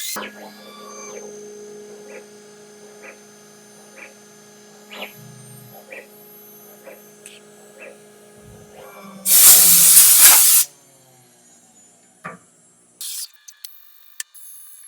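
Steady hum with light ticks about once a second, broken about nine seconds in by a loud hiss lasting about a second and a half.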